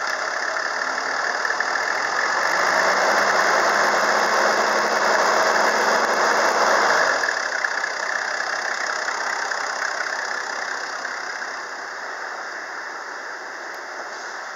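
Toyota 1HZ 4.2-litre straight-six diesel revved up and held at raised revs for several seconds, then dropping back toward idle about seven seconds in.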